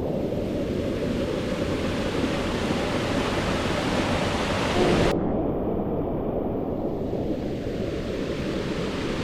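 Steady rush of flowing water, as from a river or waterfall. About five seconds in it changes abruptly and loses much of its hiss, leaving a duller rush.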